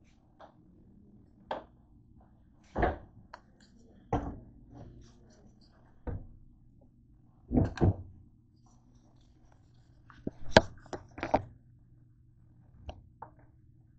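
Irregular knocks and thumps of handling: the camera and objects being moved and set down on a kitchen counter, with a dense cluster of knocks about ten to eleven seconds in. A faint low hum runs underneath.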